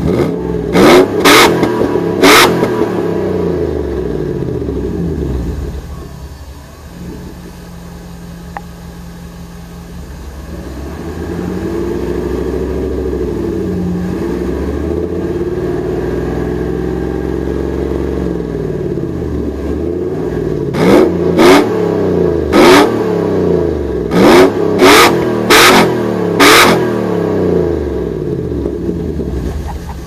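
1993 Mercedes-Benz 500E's 5.0-litre V8, breathing through a Magnaflow two-into-one catalytic converter, 3-inch pipe and single Magnaflow muffler, revved while parked. Three quick throttle blips open it, then a held rev that falls back to idle about six seconds in. It settles into a steady raised rev from about eleven seconds, then ends with a run of about seven sharp blips.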